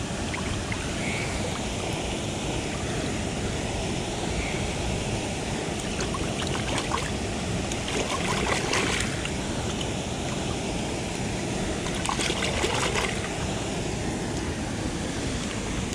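River water rushing steadily, with a few brief scratchy noises about six, nine and thirteen seconds in.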